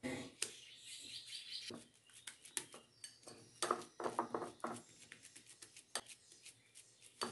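Silicone spatula working a thick oat-cheese paste around a glass bowl: many short taps and sticky scrapes, with a few brief squeaks of silicone rubbing on glass about halfway through.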